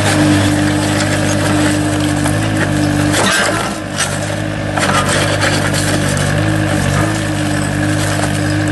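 A large engine running steadily, with scattered knocks and scrapes over it. The engine dips briefly about three seconds in.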